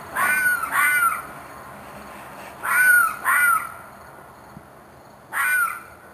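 Five short, harsh screeching calls from an animal, each under half a second and rising then falling in pitch, coming as two pairs and then a single call. The screeching went on for hours and seemed to the recordist like an animal in distress.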